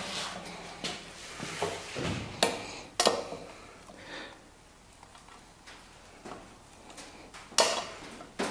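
Scattered clicks and sharp knocks of a hand tool working at the U-joint of a truck drive shaft, prying at its snap rings; the loudest knock comes near the end.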